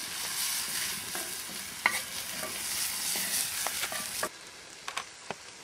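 Pepper stuffing sizzling in a skillet over a campfire while a utensil stirs it, with a few sharp scrapes against the pan. The sizzle cuts off suddenly about four seconds in.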